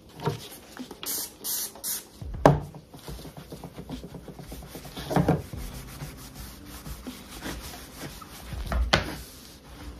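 A paper towel rubbing and wiping over the surface of a framed print, in uneven strokes, with three sharper knocks against the piece, the loudest about two and a half seconds in.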